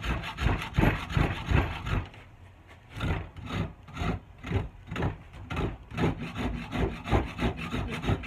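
A hand rasp scraping back and forth across a hickory axe handle in quick, even strokes, about four a second, to take down a high spot on the rounded palm swell. The strokes pause for about a second roughly two seconds in, then resume.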